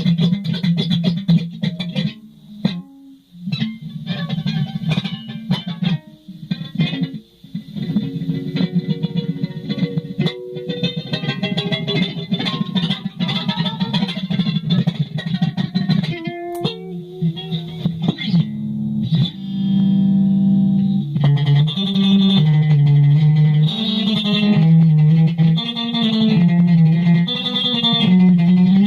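Solo guitar improvisation played through effects: quick runs of picked notes with a couple of short breaks, then sustained notes a little past the middle and a slower, lower melodic line toward the end.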